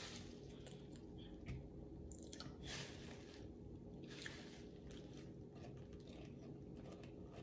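Faint chewing and wet mouth sounds of someone eating seafood-boil food with their hands, with a few brief soft squishes and clicks over a low steady hum.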